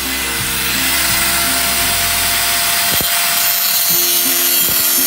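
Corded angle grinder with a cut-off wheel cutting through sheet metal, running steadily with a high hiss and a thin motor whine.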